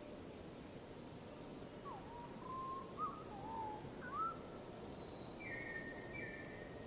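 Bird calling: a run of short, wavering, low whistled notes, then a few higher, flatter notes near the end, over a steady hiss.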